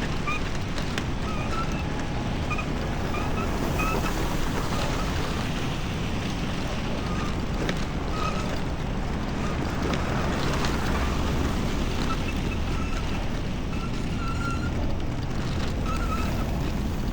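Steady rushing wind noise on an action-camera microphone while cycling through a snowstorm, over a low rumble of city street noise. Faint short high squeaks recur every second or so.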